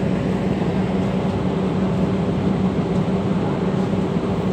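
A machine running steadily: a constant low hum with a fainter higher hum above it over a wide, even hiss.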